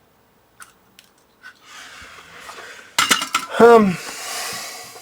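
Small metal tools clinking on the workbench in a quick cluster, then a short groan falling in pitch and a long breathy exhale.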